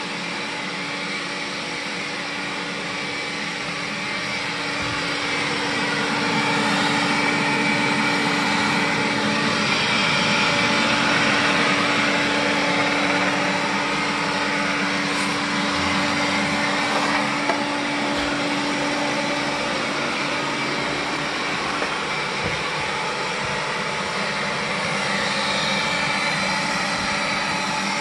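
Xiaomi Mi Robot Vacuum cleaning, its suction fan and brushes whirring steadily, louder through the middle as it passes close. A steady hum runs under the whir and stops a little past halfway.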